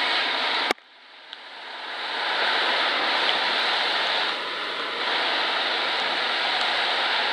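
Steady rushing of the Snoqualmie River running high near flood stage. About a second in, a click cuts the sound off, and it fades back up over the next second or two.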